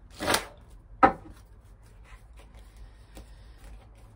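A deck of oracle cards being handled and shuffled by hand: a soft swish of cards about a quarter second in, a sharp knock at about one second, then light scattered clicks of cards.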